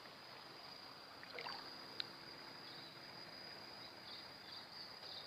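Faint outdoor ambience by the water: a steady low hiss with a thin, high steady tone, one sharp click about two seconds in, and a few faint high chirps near the end.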